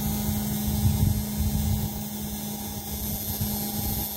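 Steady hum from the electric paddlewheel aerators running in a shrimp pond, over an uneven low rumble.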